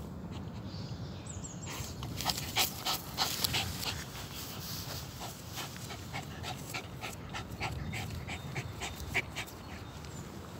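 West Highland white terrier panting and snuffling with its nose in a hole it is digging after a mole, with a quick irregular run of short sniffs and scrapes in loose soil from about two seconds in.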